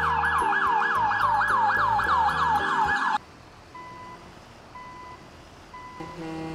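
Electronic police siren, a fast falling yelp repeating about three times a second, cutting off suddenly about three seconds in. It is followed by a quieter short beep about once a second, a truck's reversing alarm.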